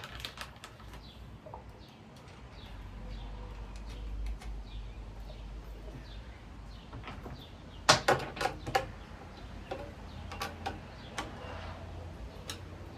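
Scattered clicks and knocks of metal screws and ceiling fan blade hardware being handled during assembly, with a louder cluster of knocks about eight seconds in.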